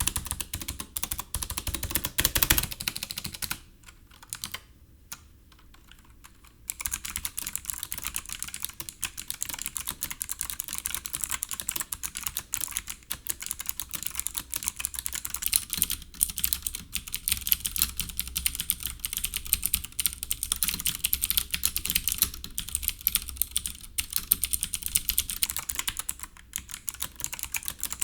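SteelSeries Apex 5 keyboard being typed on fast, its hybrid mechanical-membrane tactile clicky switches clicking in quick runs. Typing pauses for about three seconds a few seconds in, then goes on steadily.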